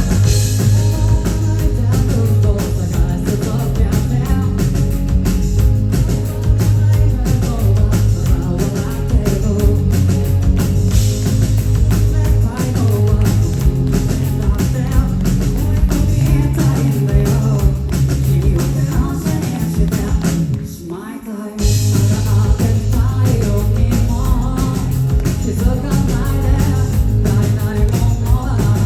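Live rock band playing loudly, with heavy drums and bass. About twenty seconds in, the band cuts out for about a second, then comes crashing back in.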